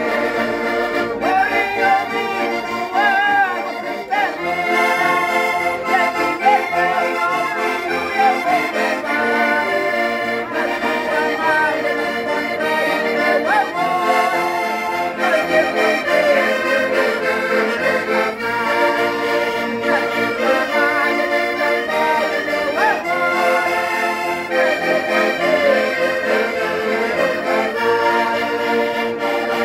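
Several diatonic button accordions playing a folk tune together, with people singing along.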